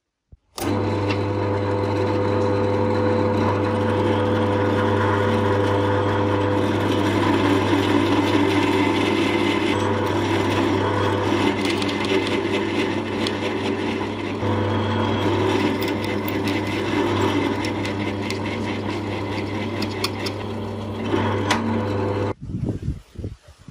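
Bench drill press running steadily with a low motor hum while its twist bit bores a hole into the housing of an old Makita electric drill, with scratchy cutting noise; the motor starts about half a second in and stops shortly before the end.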